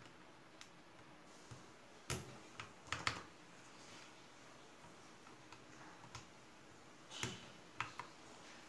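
Keycaps being pressed one at a time onto the switch stems of a mechanical keyboard: scattered sharp plastic clicks and snaps, with a quick cluster of them about two to three seconds in and another near the end.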